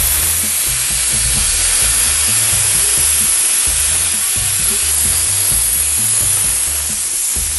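Vacuum oil extractor drawing engine oil out of a four-stroke Sea-Doo engine through the dipstick tube, a loud steady hiss that starts abruptly.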